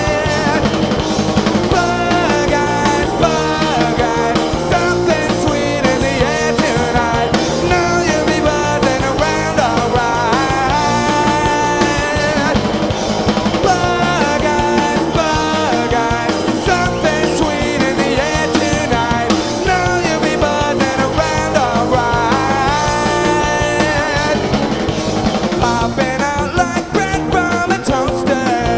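Indie rock band playing live, loud and continuous.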